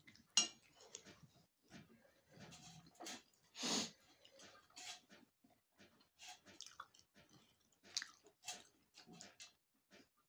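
A person chewing and eating food, with irregular short mouth noises and the loudest bite near four seconds in.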